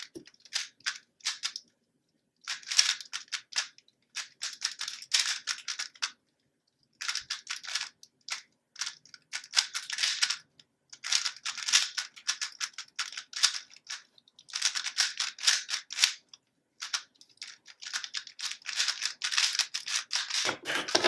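A plastic 3x3 speed cube being turned rapidly in a timed solve: fast runs of clacking layer turns broken by short pauses, with a lower knock near the end.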